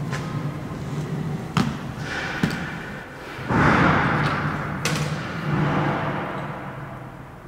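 Footsteps and a metal briefcase set down on a concrete floor: a few sharp knocks over a low steady hum, with a loud rushing swell about halfway.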